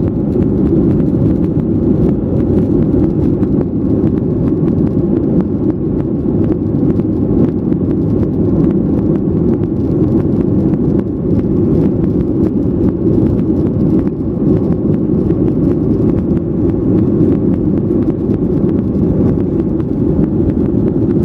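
Airliner leaving Palau: a steady, deep engine and air noise that holds at an even level throughout.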